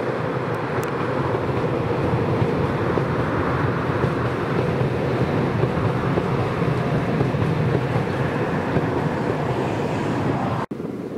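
Loaded aggregate hopper wagons of a freight train rolling past on the rails, a steady loud noise of wheels on track. It cuts off abruptly near the end.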